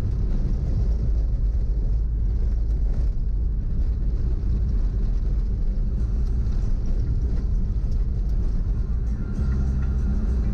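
A car driving, with a steady low rumble of engine and road noise, and music playing over it.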